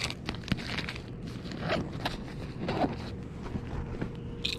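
Close handling noise of fishing tackle being worked by hand: scattered light clicks, rustles and scrapes, with a faint steady hum underneath.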